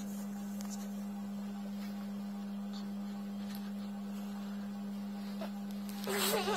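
A steady electrical hum, one unchanging low tone. Near the end, a short wavering vocal sound cuts across it.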